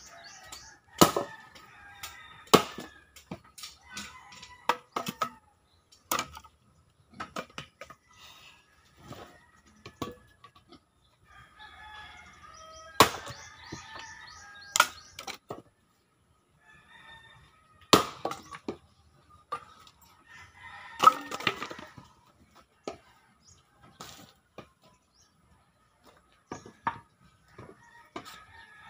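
Axe chopping firewood: sharp wood-splitting blows every few seconds, some of them single and some in quick pairs. A rooster crows and chickens cluck in between.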